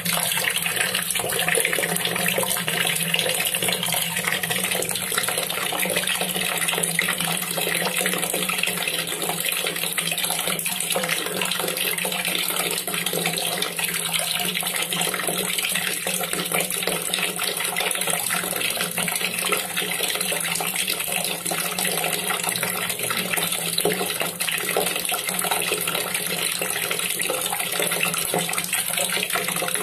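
A steady stream of water pouring and splashing into a full basin of water, running on without a break.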